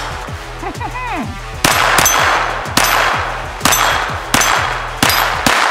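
About six shots from a suppressed Volquartsen Scorpion .22 LR pistol, roughly a second apart, each followed by the brief ring of a steel target being hit. Background music with a steady bass plays underneath.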